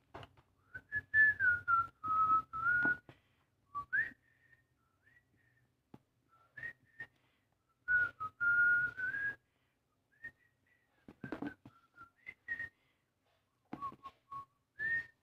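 A person whistling a wandering tune in short phrases, the pitch sliding up and down. Rustling and tapping come in between as a cardboard phone box is turned over in the hands.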